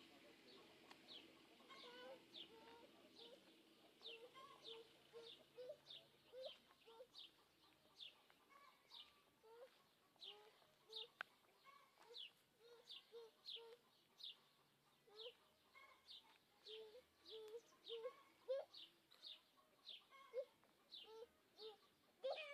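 Chickens: faint low clucks from hens among a steady run of short, high, falling peeps, about two a second.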